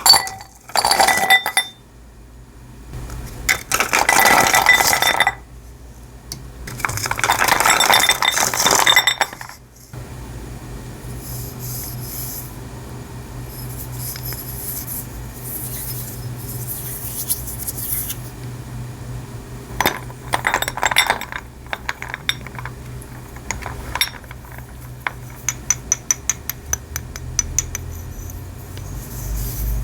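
Water poured in three bursts into a glass container of pieces of chalk set to soak. Then comes a steady low hum with faint crackling, a few clinks, and a quick run of small ticks near the end.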